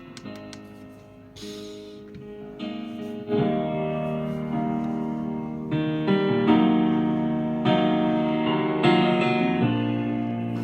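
Music with piano or keyboard chords, played through a small portable Bluetooth pill speaker as a sound test. It starts soft and steps up in loudness about three seconds in.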